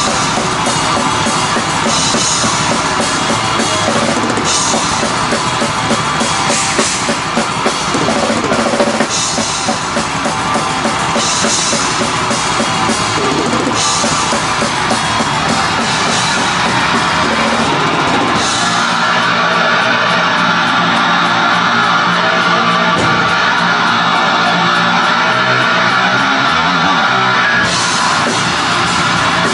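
Metal band playing: drum kit with repeated cymbal crashes under distorted electric guitar. About two-thirds of the way through, the sound turns thin, with the bass and top cut away, and the full sound comes back near the end.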